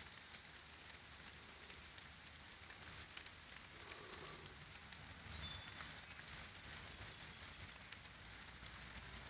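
Light rain falling with a steady soft hiss, and a small bird giving short high-pitched chirps from about three seconds in, ending in a quick run of notes around six to seven seconds.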